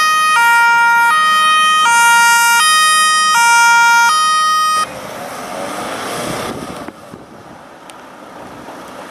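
Fire service car's two-tone siren sounding loudly, switching between a high and a low tone about every three-quarters of a second. It cuts off suddenly about five seconds in, leaving a quieter rushing noise.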